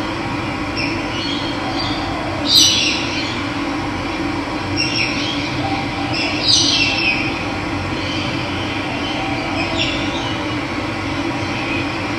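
Steady rush of running water with birds calling over it: short, falling high calls every few seconds, the loudest about two and a half and six and a half seconds in.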